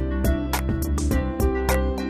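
Background music: plucked and strummed guitar over a steady beat.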